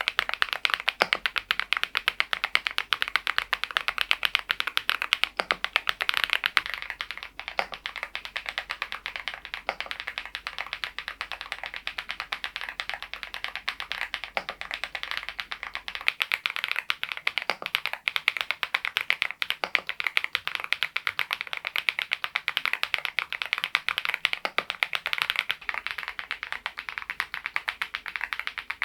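Fast, continuous typing on a Mongdol87 mechanical keyboard fitted with thick PBT Cherry-profile keycaps: a dense, even stream of key clicks with a brief let-up about seven seconds in.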